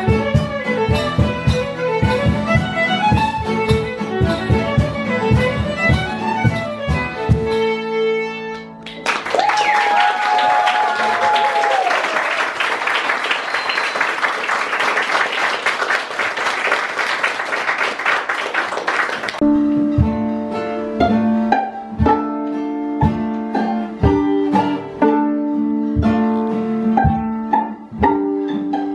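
Live acoustic string music: violin with plucked strings, picked notes over a steady beat. For about ten seconds in the middle, the notes give way to a hissing, noisy wash with a held tone over it, before the plucked notes return.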